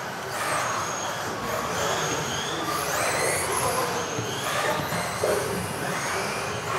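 Several electric RC off-road buggies racing, their motors whining in overlapping glides that rise and fall in pitch as they accelerate and brake.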